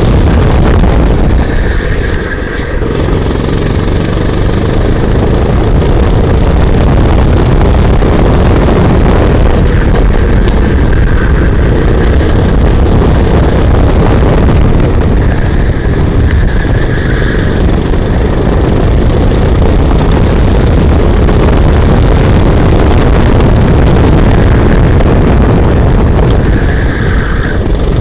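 Go-kart engine running hard at speed through a lap, heard from the driver's seat with wind rushing over the microphone. The level dips briefly about two seconds in, then stays steady and loud.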